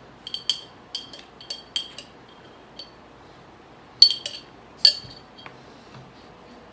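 Metal spoon clinking against a glass jar as sauce is scooped out: a quick run of light clinks in the first two seconds, then three louder clinks about four to five seconds in.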